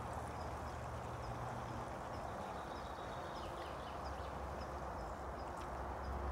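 A small bird chirping repeatedly, short high calls about two a second, over a steady outdoor background hiss.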